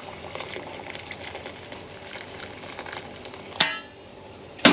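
A cat meowing loudly, once about three and a half seconds in and again at the very end, over a faint steady crackling.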